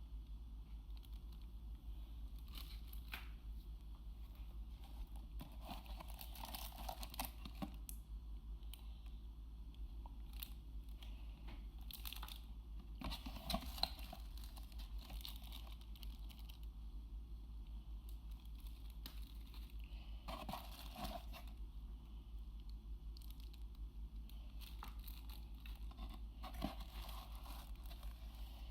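Packaging being handled and opened: intermittent crinkling, rustling and tearing with a few sharp clicks, over a steady low hum.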